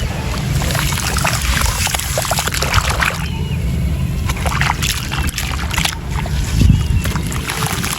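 Gritty sand-and-cement texture crumbling in water: a dense, irregular crackling with splashing and sloshing.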